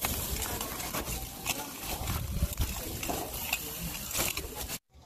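Metal grill tongs clicking and scraping against lobster shells and the grill grate as the lobsters are moved, irregular sharp clicks over a low rumble. The sound cuts off abruptly near the end.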